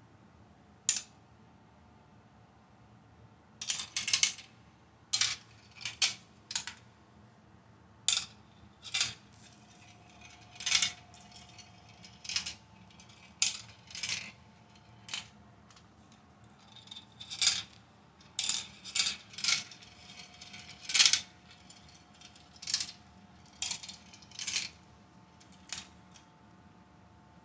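Marbles and plastic pieces of a 3D marble run set clacking: a string of short, sharp clicks at irregular intervals, some in quick clusters.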